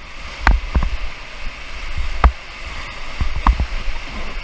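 Rushing whitewater around a raft, with a number of irregular sharp knocks and thumps over the steady rush of water.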